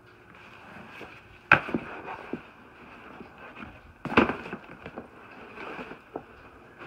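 Two sharp knocks about two and a half seconds apart, with lighter taps and rustling between them.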